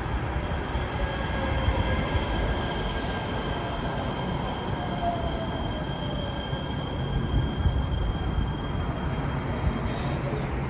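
Los Angeles Metro A Line light rail train pulling into the platform and slowing to a stop: steady rolling rumble with a thin high wheel squeal, and a motor whine that falls in pitch as it brakes.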